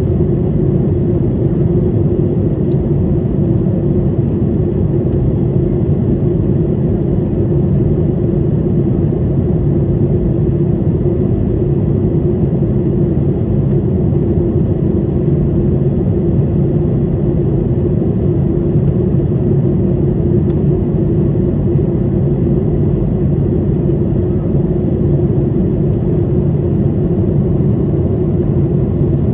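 Cabin noise inside a Boeing 737-800 in flight: its CFM56-7B jet engines and the airflow give a steady low rumble with a constant hum.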